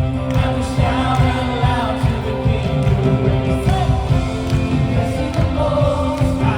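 Background song with a singing voice over a steady beat and band accompaniment.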